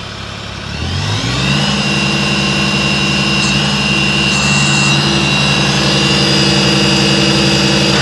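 New Holland Boomer 20 compact tractor's diesel engine revved up from idle about a second in, then held steady at higher revs, with a high-pitched whine that rises with the engine and then stays level.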